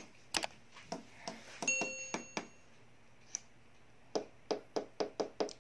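Buttons on a Matsunichi 40 kg digital platform scale's keypad clicking as they are pressed, with one electronic beep lasting about a second, about a second and a half in. Near the end come about six quick presses, roughly three a second.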